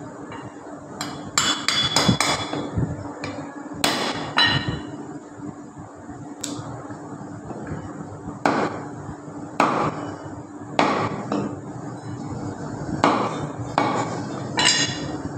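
Butcher's knife chopping goat leg meat and bone on a wooden chopping block: sharp, irregular chops, roughly one every second or so, with a quick run of several chops about two seconds in.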